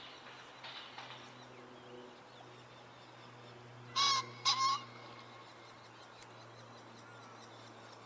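Male green pheasant giving its loud, harsh two-note territorial crow about four seconds in. Fainter bird calls come in the first second.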